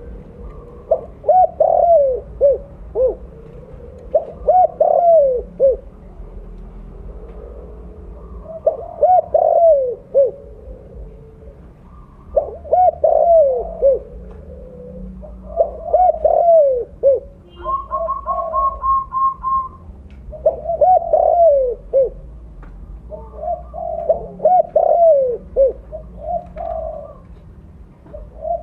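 Spotted dove (tekukur) cooing loudly, in repeated phrases of several curved coos every three to four seconds. Midway a quick, even run of higher short notes sounds once.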